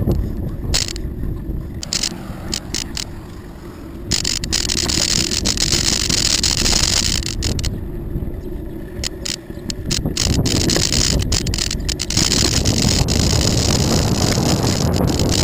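Bicycle riding on a paved trail: wind buffeting the microphone over the rolling hiss of the tyres, with frequent short clicks and rattles as the bike goes over bumps. The hiss gets louder about four seconds in, after a quieter stretch.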